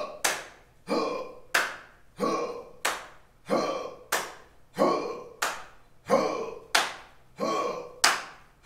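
A large group of people sounding off in unison while exercising: a steady cadence of sharp, echoing calls in pairs, about one pair every second and a third.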